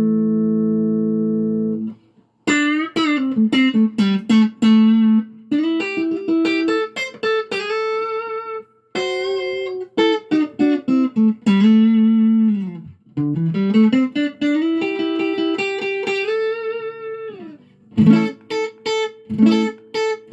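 Electric guitar played through an Aklot Dyna compressor pedal: a held chord that cuts off about two seconds in, then a single-note melody with string bends and vibrato, ending with a few short chord stabs.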